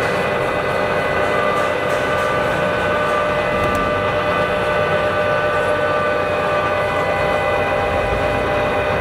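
Birmingham 16" x 40" gap-bed engine lathe running under power: a steady gear whine of several tones over a low rumble. An extra tone joins in for a few seconds partway through.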